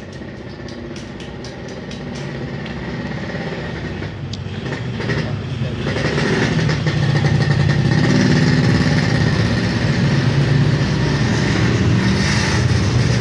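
A motor vehicle engine running steadily, growing louder from about four seconds in and then holding at a constant level, with a few light metallic clicks in the first seconds.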